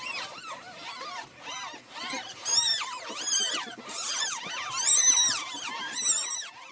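Ferrets squeaking: a rapid series of short, high-pitched squeaks, each rising and falling, about two a second, getting louder in the second half.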